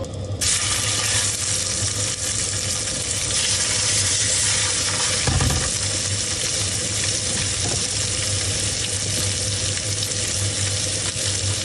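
Raw fish pieces sizzling in butter in a stainless steel frying pan on a small propane camp stove. The sizzle starts about half a second in, as the fish goes into the hot pan, and then carries on steadily.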